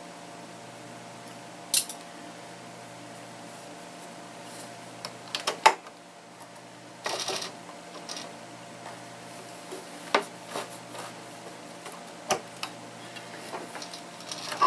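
Hands handling knit fabric and small hard parts: scattered sharp clicks and a short rustle of cloth about halfway through, over a faint steady hum.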